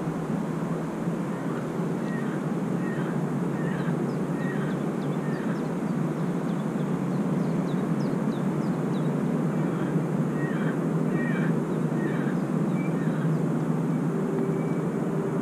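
Outdoor ambience at a pond: a steady low rush of background noise, with a bird calling over it in a series of short, falling chirps, in two runs.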